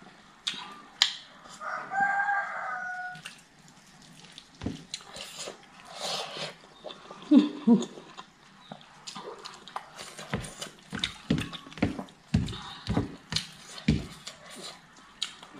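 A chicken calls once, about two seconds in. Then come sharp clicks and smacks of eating with the hands: fingers mixing rice on a plate, chewing and lip smacks.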